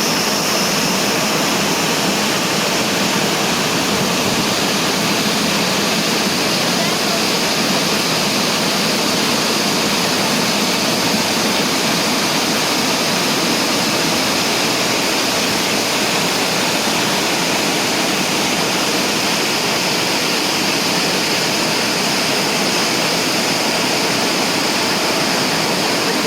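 Waterfall: a steady, unbroken rush of falling water that stays even throughout.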